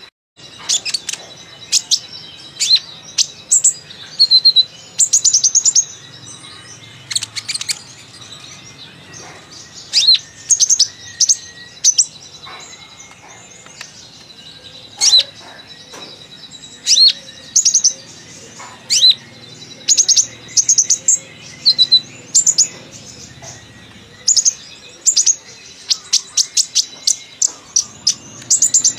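Olive-backed sunbird (kolibri ninja) singing a busy, chatty song: bursts of sharp, high chirps and quick trills, some strung into fast runs, with short pauses between.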